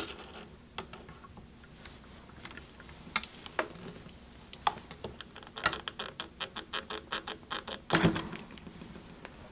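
Small metal clicks and taps of hand wrenches on the propeller nut of an R. M. Young Wind Monitor as the nut is tightened back on. The clicks come singly at first, then in a quick run of about four or five a second starting about halfway through, with a slightly heavier knock near the end.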